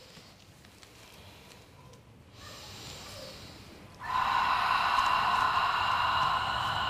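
A woman's breathing: a faint breath in, then about four seconds in, a loud, steady breath out through the open mouth, a Pilates exhale.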